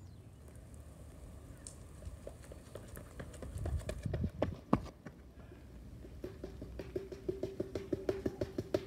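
Running footsteps in athletic shoes on pavement and concrete steps: quick footfalls with a few heavier thuds about four seconds in, then an even patter of about four steps a second over a steady low tone in the second half.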